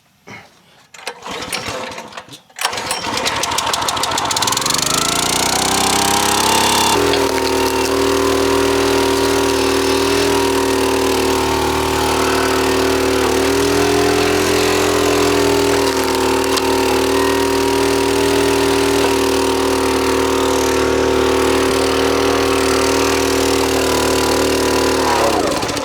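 Kohler 6.5 HP single-cylinder engine on a log splitter, recoil-started with the choke on. It catches about two and a half seconds in, revs up and settles into a steady run. Near the end it cuts out and winds down, the stalling fault that a new ignition coil has not cured.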